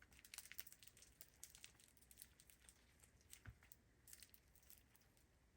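Faint crackling and popping of an over-activated foam-bead slime being squeezed and worked by hand, a scatter of small irregular clicks.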